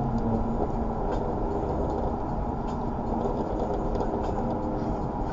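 A car running steadily at an even pitch with road noise, with no revving.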